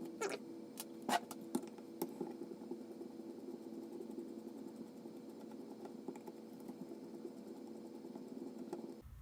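Small sharp clicks and taps of hard plastic parts and a hand tool being handled while a sander is taken apart, several close together in the first two seconds and then lighter ticks, over a steady low hum that stops suddenly near the end.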